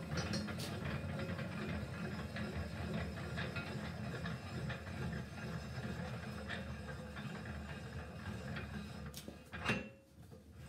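Steel revolving cylinder and breech screw of a home-built Puckle gun being worked by hand after a misfire: a steady metallic rattling and grinding of the threads and cylinder block, with small clicks throughout and one sharp clunk near the end.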